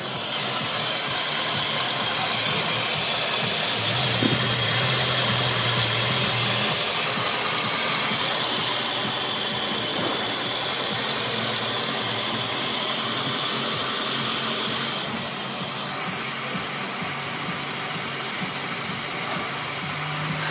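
Nissan SR20 2.0-litre four-cylinder petrol engine idling steadily, under a loud, even hiss.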